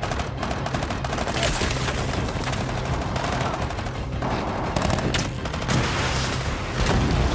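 Sustained, dense automatic gunfire in a film battle soundtrack, many rapid shots in overlapping bursts over a steady low rumble.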